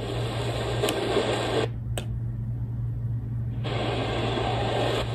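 Retekess V115 portable radio's speaker playing noisy shortwave reception in the 49 m band: hiss and static over a steady low hum, with weak station audio buried in it. Two button clicks come about one and two seconds in. The sound goes dull and muted for about two seconds as the radio retunes from 6000 to 6030 kHz, then the static returns.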